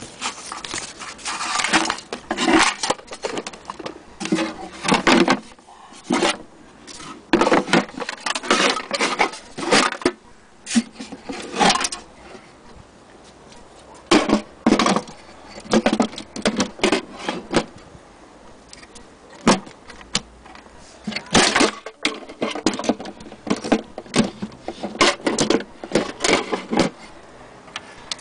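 Irregular clatter of objects being handled close to the microphone: bursts of clicks, knocks and light metallic rattling with short pauses between them.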